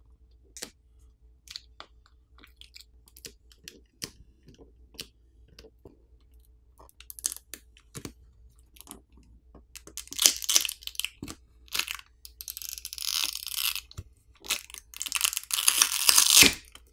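Scattered small plastic clicks and taps of a pry tool and fingers against a smartphone's frame, then several crackling, tearing bursts in the second half as the battery's adhesive pull tab is pulled and the battery peels off its adhesive.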